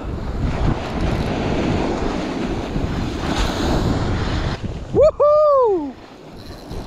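Wind buffeting the microphone over breaking surf, then about five seconds in a loud, short whooping shout that rises and falls in pitch, lasting about a second.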